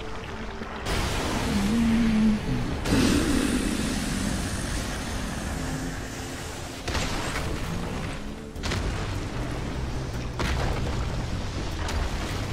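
Animated battle sound effects: heavy booms and rumbling blasts, with sudden hits about a second in, near three seconds, around seven and near nine seconds, over a dramatic music score.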